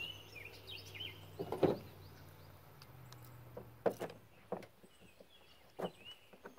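Faint bird chirps, with a few scattered sharp clicks and knocks as tools and bungee cords are handled on a pickup's plastic bed liner.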